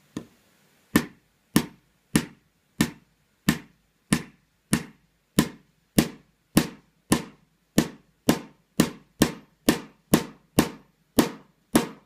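A small hammer tapping the spine of a utility-knife blade held in a score line on a Master Lock 410 lockout padlock's hard plastic body, driving the blade in to split the casing. About twenty sharp, evenly paced taps, each with a brief ring, at roughly one every half second, coming a little quicker near the end.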